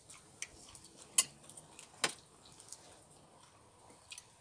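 Knife and fork clinking and scraping on a plate in a few scattered clicks, the sharpest about two seconds in.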